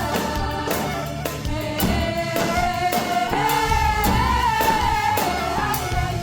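Song with a lead voice holding one long wavering note that climbs and falls back near the end, over steady drum beats.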